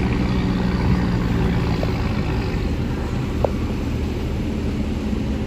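Diesel engine of heavy earthmoving machinery running steadily with a low hum, and a short squeak about three and a half seconds in.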